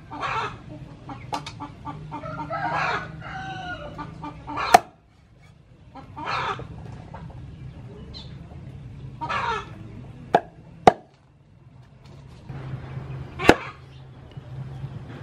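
Chickens clucking and a rooster crowing about two and a half seconds in, heard through several sharp chops of a cleaver on a wooden cutting board. The chops are the loudest sounds, coming at irregular moments.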